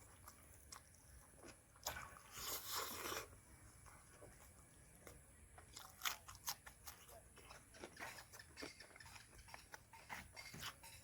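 A person chewing and crunching food close to the microphone. There is a longer crunch about two seconds in, then soft scattered mouth clicks and small crunches.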